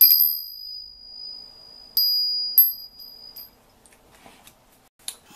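Small brass hand bell rung four times, a clear high ringing tone that sustains and fades after each strike: once at the start, then three quicker strikes about two to three and a half seconds in.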